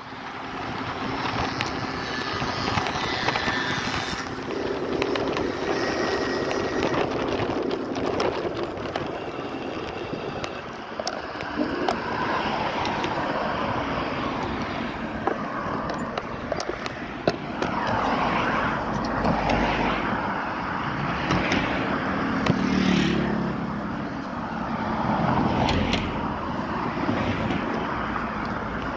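Street ride on a Lime electric scooter: a steady rush of road and wind noise with scattered small knocks, and traffic noise swelling louder in the second half.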